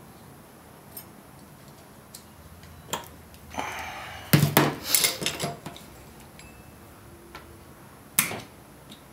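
Small metal clicks, scraping and sharp clinks of a snap ring being fitted over the new countershaft bearing in the SM465 transmission case with a small hand tool, loudest in a cluster about halfway through and once more near the end.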